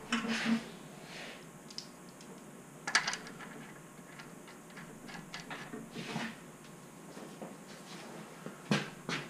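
Scattered light metallic clinks and knocks of hand tools being worked on an engine during a timing belt job. The sharpest knock comes about three seconds in and another near the end.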